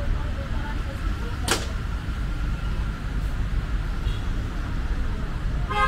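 Street ambience with a steady low traffic rumble, a brief sharp swish about a second and a half in, and a short vehicle horn beep at the very end.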